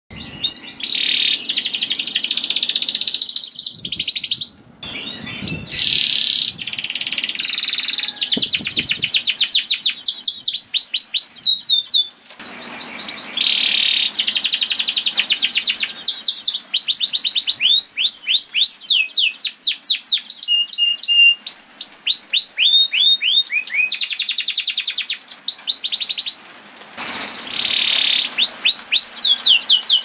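Red-factor canary singing a long song of fast trills and rolls, built from quickly repeated downward-sweeping notes, broken by a few short pauses.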